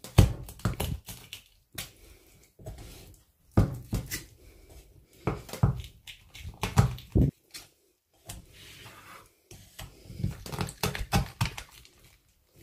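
Large kitchen knife being pressed and worked down through the breastbone of a raw chicken breast on a wooden cutting board: irregular clusters of knocks and thumps as the blade strikes the board.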